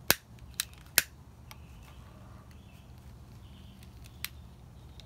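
A few short, sharp clicks over a low, steady background hum: three in the first second and a fainter one about four seconds in.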